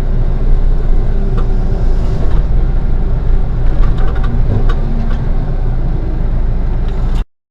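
Heavy construction machine's diesel engine running under load, with a few scattered knocks and clanks; the sound cuts off suddenly near the end.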